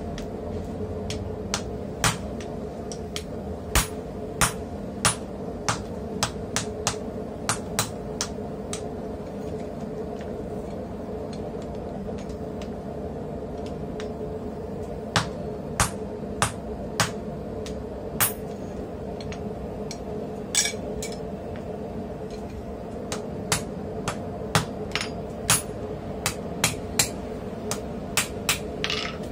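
Hand hammer striking red-hot steel held in tongs on a steel block tool, forging out a punch: runs of sharp, ringing blows with pauses between them. A steady hum runs underneath.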